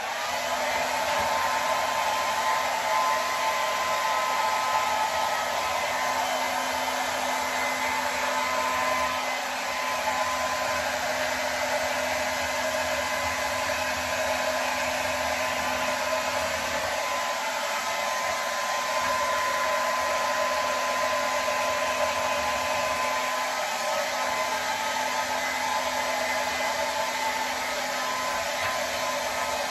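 Handheld hair dryer running steadily on one setting: a rush of air with a steady motor hum and a faint whine.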